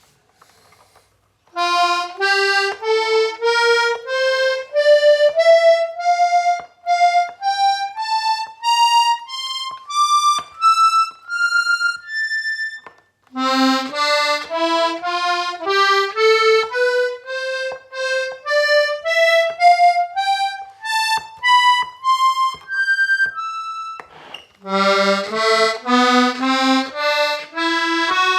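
Hohner Corona IIIR diatonic button accordion playing scales, reedy single notes stepping upward one at a time. There are three rising runs, with a short break between each; the last run starts near the end.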